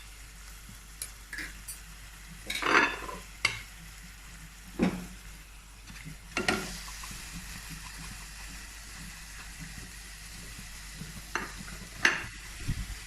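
Crushed green chilli mix sizzling in hot coconut oil with sautéed onions in a pan, while a spoon stirs it. Every second or few there is a sharp scrape or knock of the spoon against the pan.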